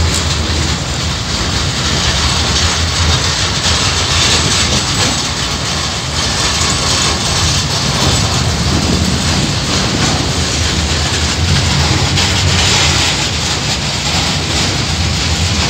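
Loaded KiwiRail coal wagons, flat wagons carrying tarp-covered coal containers, rolling steadily past at close range: the continuous noise of steel wheels on the rails, a low rumble with a hiss above it.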